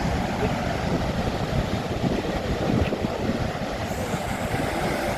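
Goðafoss waterfall's steady roar of falling water.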